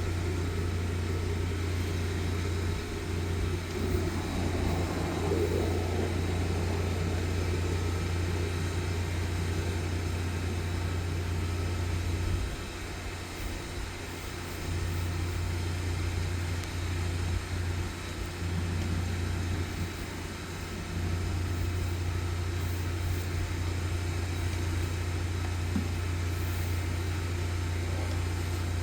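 Engine of a high-pressure sewer jetter running steadily with a deep hum, easing off briefly a few times in the middle.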